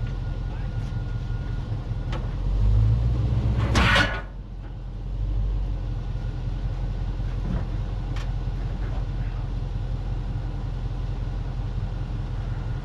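A motor engine idling with a steady low rumble. It swells for a moment about two and a half seconds in, and a short sharp noise comes about four seconds in.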